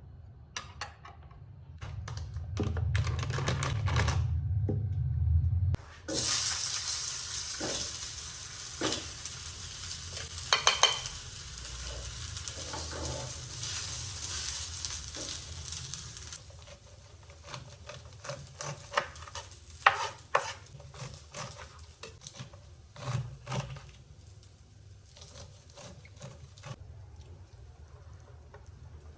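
Cooking in a pan: a utensil clicks and scrapes as food is stirred. After about six seconds there are about ten seconds of sizzling, which then cut off. Scattered clicks of kitchenware follow.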